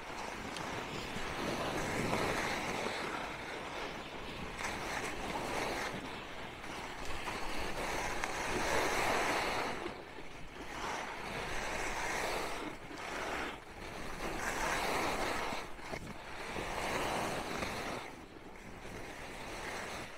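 Skis scraping and swishing over packed snow, swelling with each turn about every two to three seconds, with wind rushing over the microphone.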